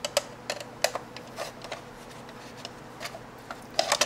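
Irregular sharp clicks and small scrapes of a hard plastic clock case being pried open with a small hand tool, with a quick cluster of clicks near the end.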